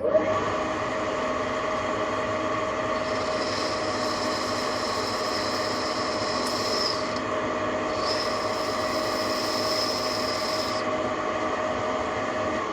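TV-16 benchtop lathe running while boring out a bore to size. A high squeal from the cut comes in twice for a few seconds each.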